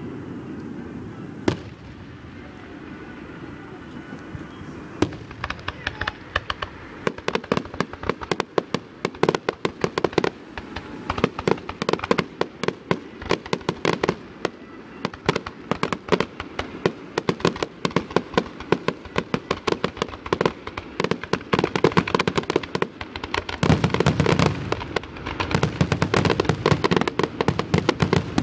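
Fireworks grand finale: a single sharp bang about a second and a half in, then from about five seconds a rapid, unbroken barrage of shell bursts and crackling that grows heavier near the end.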